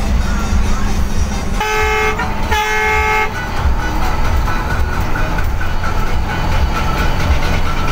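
Bus diesel engine running with a steady low drone inside the cabin of a Mitsubishi BM 117 bus, while a vehicle horn sounds twice about a second and a half in, two blasts of under a second each in quick succession.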